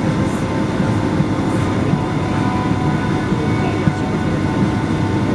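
Steady cabin rumble inside a Boeing 757-200 taxiing after landing: the jet engines running at taxi power and the airliner rolling along the taxiway, with a faint steady hum over the low rumble.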